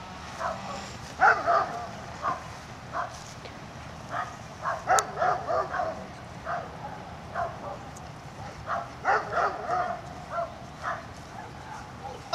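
Young German Shepherd giving short, high yips and barks over and over at irregular intervals while heeling. A single sharp click comes about five seconds in.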